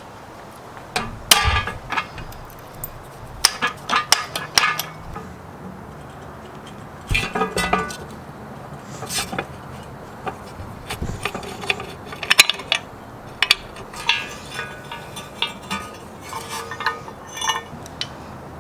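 Metal parts and tools knocking and clinking together in irregular strikes, some in quick clusters, several leaving a short metallic ring, as an old pedal-powered grinder is worked on by hand.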